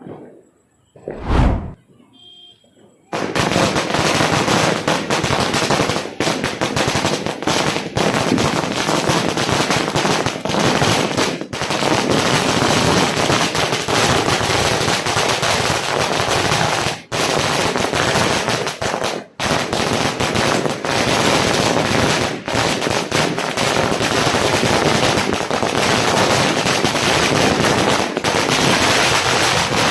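A 10,000 wala firecracker string bursting: a single sharp bang about a second in, then from about three seconds in a dense, unbroken rattle of rapid small bangs as the chain fires off.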